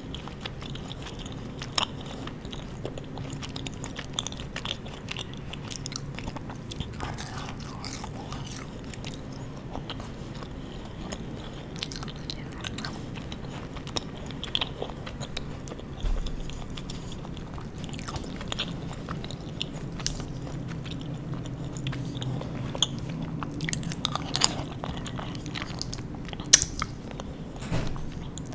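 Close-miked chewing of sweets: soft wet mouth sounds with scattered light crunches and clicks, and a few sharper clicks near the end.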